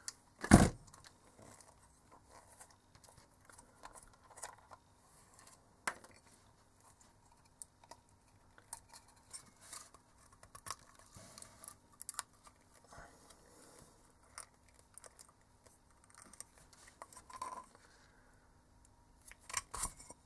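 Small metal and plastic parts clicking and rustling as an LED spotlight housing is worked apart by hand and its driver pulled out, with a sharp knock about half a second in and another about six seconds in.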